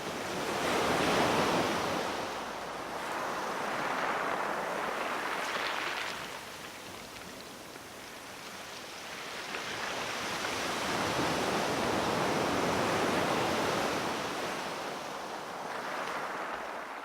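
Sea surf: waves breaking and washing on the shore, rising and falling in slow surges every few seconds.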